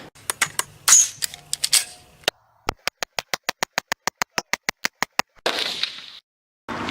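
Scattered sharp clicks and knocks, then a rapid, even run of sharp clicks at about eight a second for a couple of seconds, ending in a short hiss.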